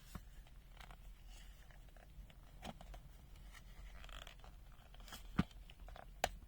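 Hard plastic multimeter case being handled and opened by hand: faint scrapes and small clicks, then two sharp clicks near the end.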